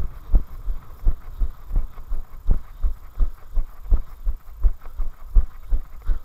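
Running footsteps on a tarmac path, a steady rhythm of low thumps about three steps a second, jolting the camera that the runner carries.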